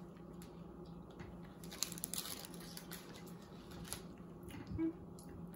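Quiet chewing and small mouth sounds of people eating soft peanut butter cup candy, with a few soft clicks and rustles over a faint steady hum.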